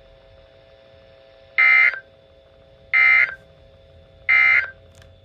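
Emergency Alert System end-of-message code from a weather radio: three short buzzy digital data bursts about a second apart, signalling that the warning broadcast is over.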